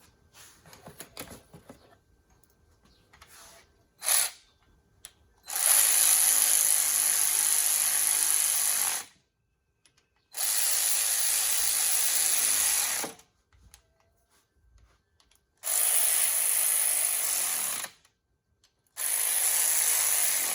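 Handheld cordless power tool running in four bursts of a few seconds each, spinning in bolts on a driveshaft universal joint, with a sharp clack about four seconds in.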